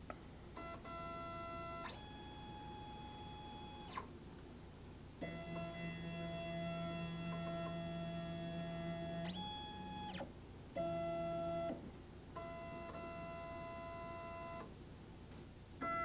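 STEPCRAFT desktop CNC's stepper motors whining as the machine jogs the spindle into position in several short moves. Each move is a steady whine that glides briefly up at the start and down at the stop, and the pitch differs from move to move, with short pauses in between.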